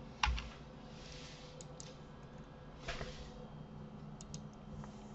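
Computer keyboard and mouse clicks: one sharper click about a quarter second in, then a few scattered light clicks and a brief soft rush, over a faint steady hum.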